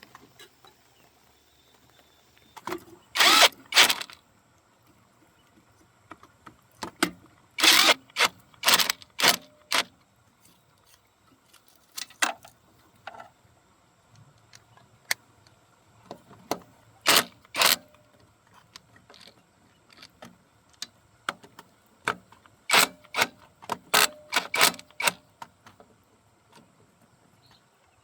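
Scattered metallic clanks and rattles of hand tools and metal parts being handled, coming in short clusters, as the exhaust pipe and air intake are fitted to a tractor engine.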